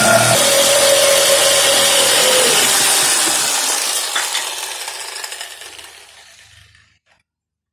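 Electric power tool switched off and spinning down: its motor tone drops about a third of a second in, then slides lower while the running noise fades away over several seconds, gone near the end.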